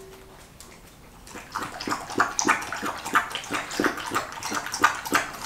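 Young Jindo-mix dog lapping wetly and quickly from a stainless steel bowl, about four laps a second, starting a second or so in.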